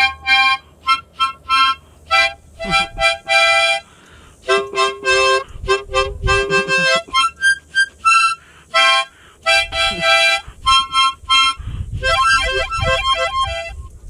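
A harmonica played in short, halting notes and chords with gaps between them, a few held longer in the middle; the player calls himself without musical talent.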